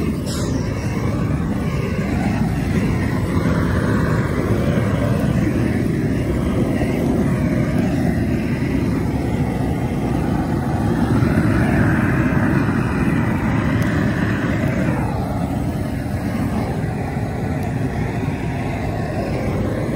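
Handheld gas blowtorch burning steadily with a continuous rushing flame, singeing the hair off a goat carcass; the flame sounds a little brighter about halfway through.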